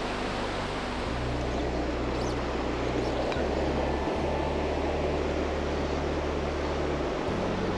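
Steady rush of fast-flowing river water over a rocky bed. A low, steady hum runs underneath and shifts in pitch a few times.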